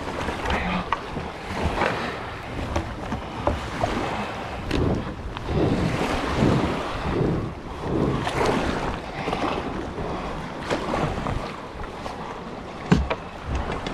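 Water splashing and lapping against a kayak's hull as it is paddled through shallow, choppy water, with wind buffeting the microphone. A sharp knock stands out near the end.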